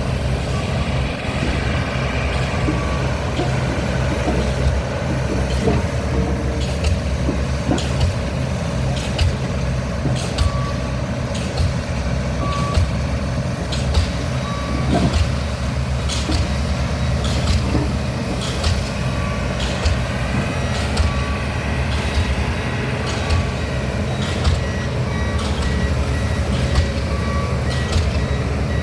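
Diesel pile hammer (DD65) driving a concrete pile: sharp, evenly spaced blows about one every second and a quarter over the steady low rumble of the rig's engine.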